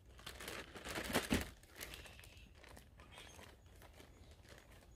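Clear plastic zip-top bag holding fish pieces and flour crinkling as it is shaken and handled. The rustle is busiest in the first second and a half, then fainter and scattered.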